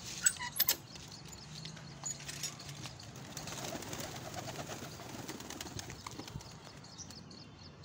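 A few sharp clacks as the latch and wire-mesh door of a pigeon loft are opened, then domestic pigeons cooing and flapping their wings as they fly out.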